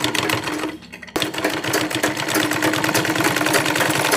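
Vishal straight-stitch sewing machine running, a rapid, even clatter with a steady hum, as it stitches a zipper onto a jacket. It stops briefly just under a second in, a single click sounds, and it runs on steadily.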